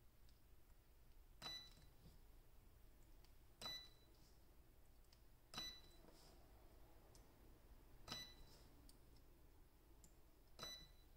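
Battery spot welder firing through its handheld probes, welding 0.15 mm nickel strip onto 18650 cells: five short, sharp snaps, one every two to two and a half seconds, each with a brief ring.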